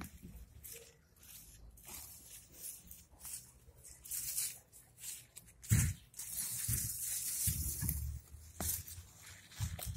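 Radishes being pulled by hand out of soil, with leaves rustling and roots tearing loose in scattered bursts, and a sharp thump about six seconds in.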